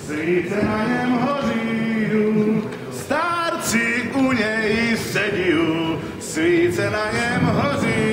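A man singing a Moravian folk song unaccompanied, in long held, wavering notes, with short breaths between phrases about three and six seconds in.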